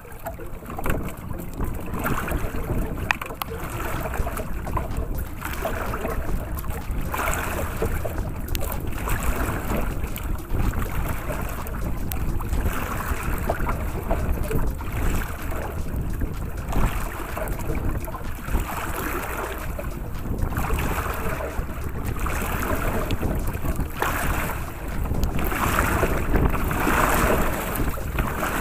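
Waves sloshing and splashing against the hull of a small fishing boat in surges every second or two, over steady wind rumbling on the microphone.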